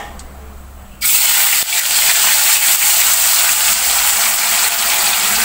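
A slab of tofu goes into hot oil in a wok about a second in, setting off a loud, steady sizzle of deep frying.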